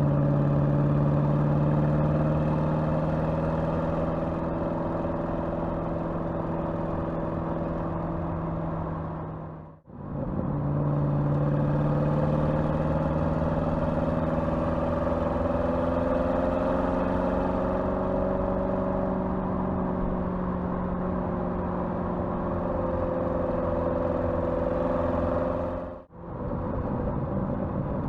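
Porsche Cayenne twin-turbo V8 running at steady moderate revs, its pitch drifting slightly up and then easing back. The sound drops away sharply twice, about ten seconds in and near the end, before picking up again.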